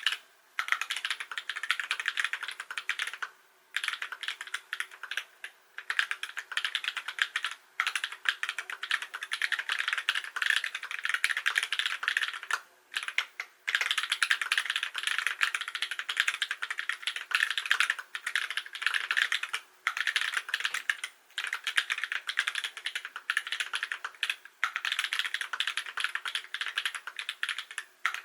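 Typing on a custom mechanical keyboard with lubed Holy Panda tactile switches (Halo clear stems, 70 g springs) in a Lubrigante case: fast runs of keystrokes broken by short pauses every few seconds.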